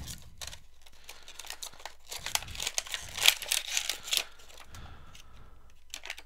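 Retail packaging of a USB wall charger being opened by hand: irregular crinkling and tearing, busiest from about two to four seconds in.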